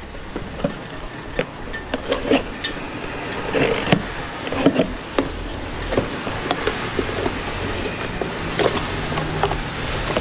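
Packaging being rustled and opened and a part being handled, with scattered sharp clicks and knocks over rough rustling.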